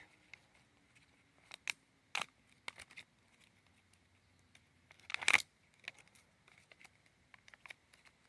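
Hands working a plastic case and duct tape into a makeshift knife sheath: scattered clicks and crinkles of plastic, with one short, louder rip about five seconds in.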